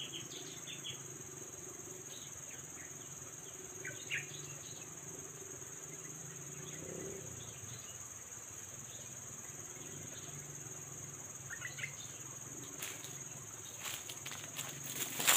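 A steady high insect drone, with a few short chirps now and then. Near the end come crunching footsteps in dry leaves, growing louder as they approach.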